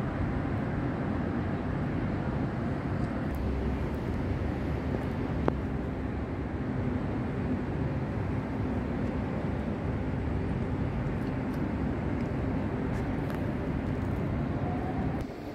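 Steady low rumble of outdoor city noise on a rooftop, with one short click about five and a half seconds in. The rumble drops away just before the end.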